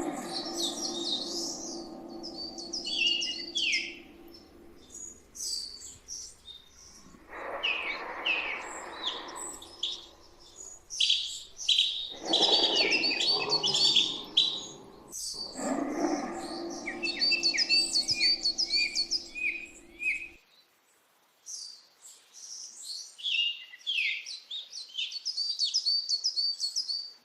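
Many small birds chirping and trilling in quick runs of high notes. Underneath, a lower steady layered sound swells up a few times and cuts off suddenly about twenty seconds in, leaving only the birdsong.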